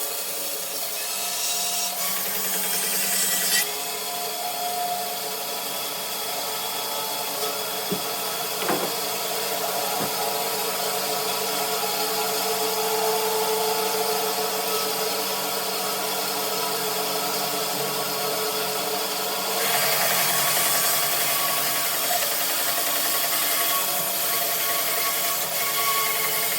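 Bandsaw with a 3/4-inch blade running and cutting through dogwood: a steady motor hum under the hiss of the blade in the wood, growing louder about twenty seconds in.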